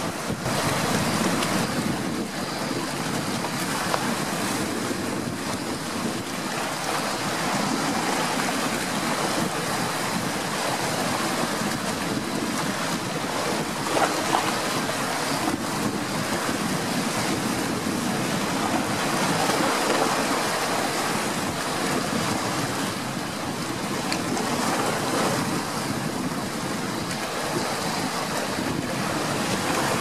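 Sea waves breaking and washing over coastal rocks: a steady rushing surf that swells briefly louder about halfway through.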